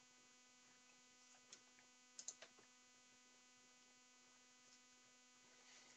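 Near silence: a faint steady electrical hum, with a few faint clicks about one and a half to two and a half seconds in.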